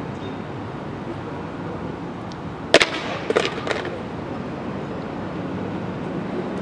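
A skateboard deck hitting the concrete with one sharp crack about three seconds in, followed by a few smaller clattering knocks as it bounces and settles, over a steady background hum.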